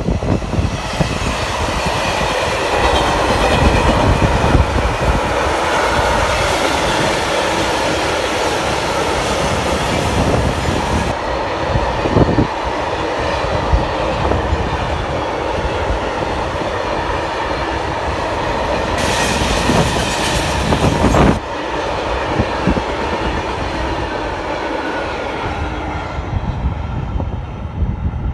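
Colas Rail Class 70 (GE PowerHaul) diesel locomotive passing with its engine running, followed by a long train of bogie tank wagons whose wheels run steadily on the rails. The wagon noise fades near the end as the train draws away.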